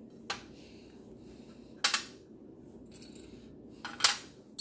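Small lidded glass jars being set down one after another on a counter mat: three sharp clinks, the last near the end the loudest.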